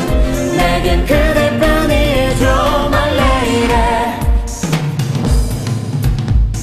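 Korean pop song: a wavering lead melody over drums and bass. About four and a half seconds in, the melody drops out and leaves the drum beat and bass.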